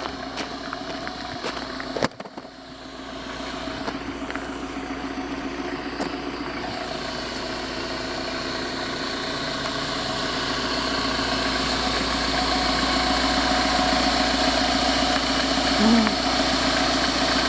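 Camper van engine idling steadily with a newly replaced timing belt, growing gradually louder. A single sharp knock comes about two seconds in.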